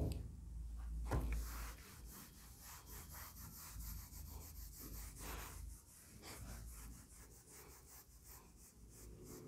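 Board duster wiping a whiteboard: a faint, irregular series of short rubbing strokes.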